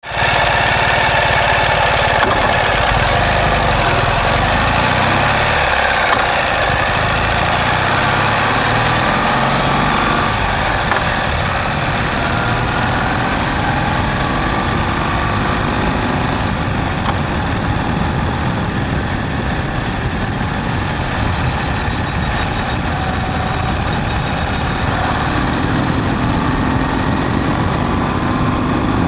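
Ural sidecar motorcycle's flat-twin engine running steadily under way, with wind and road noise over it.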